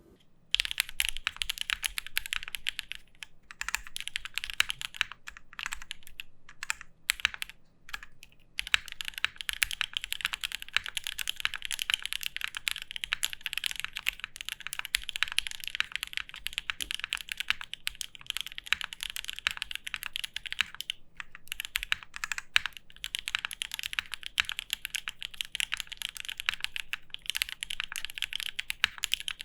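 Typing test on a custom 60% mechanical keyboard with a POM plate, SP-Star Polaris White switches lubed with Krytox 205g0 and GPL 105, Cherry clip-in stabilizers and Domikey Cherry-profile keycaps. The keystrokes come fast and continuously, broken by a few short pauses.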